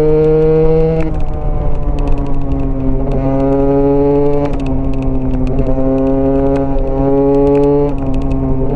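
Single-cylinder Husqvarna dirt bike engine under way, heard from the bike itself. Its pitch climbs and then drops back several times, about a second in, near three, four and a half, seven and eight seconds, with the engine on and off the throttle or changing gear.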